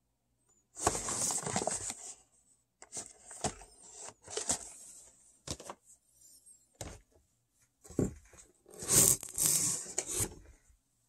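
Close handling noise: hands rubbing and scraping against cardboard packaging and the recording device in irregular bursts, with a few sharp knocks between, loudest about a second in and again near the end.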